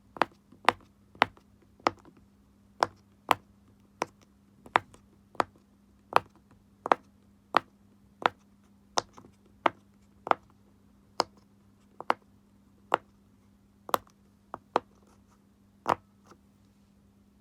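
Silicone Pop It fidget toy having its bubbles pushed in one after another, each giving a short sharp pop, about one and a half a second at a slightly uneven pace. A faint steady low hum sits underneath.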